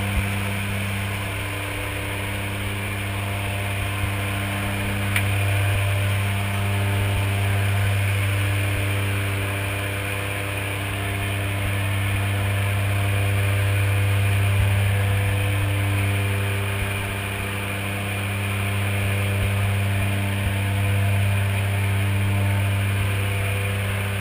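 Jump plane's engine drone heard inside the cabin during the climb: a steady, loud low hum with overtones that slowly swells and fades, with a few faint clicks.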